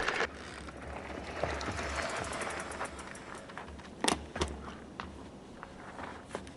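Mountain bike riding over a dirt trail: steady tyre and wind noise with a low rumble, broken by a few sharp knocks and rattles from the bike, the loudest about four seconds in.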